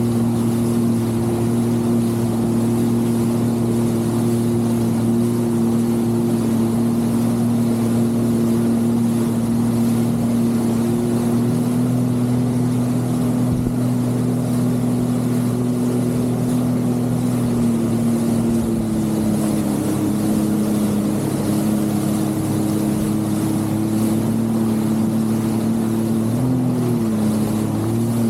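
Jet ski engine running at a steady cruising speed; its pitch eases down a little about two-thirds through and dips briefly near the end as the throttle is eased.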